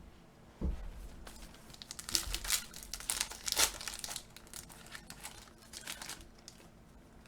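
A thud, then a trading card pack's wrapper being torn open and crinkled, loudest a couple of seconds in.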